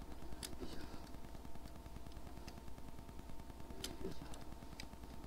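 Honda VFR1200X Crosstourer's V4 engine running at low revs with an even low throb, with a few faint scattered clicks over it.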